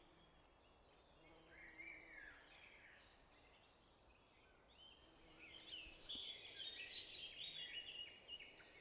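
Faint birds chirping, a few calls early on and a denser, busier run of short chirps in the second half.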